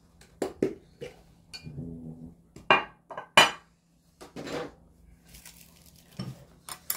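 Utensils clinking and tapping against dishes at a meal: a string of irregular sharp clinks of varying loudness.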